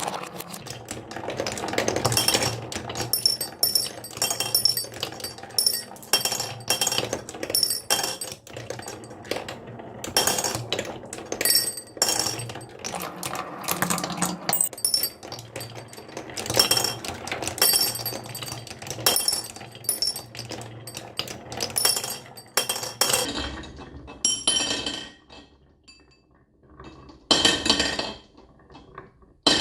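Many marbles rolling and clattering down a marble run, clicking against each other and the track with a low rolling rumble underneath. The clatter is dense and continuous until near the end, where it thins to a few separate rattles.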